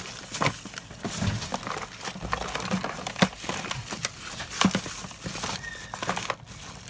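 Hands rummaging through a bin of loose wires, heat shrink tubing and small parts: steady rustling and crinkling with scattered clicks and knocks, the sharpest about three seconds in.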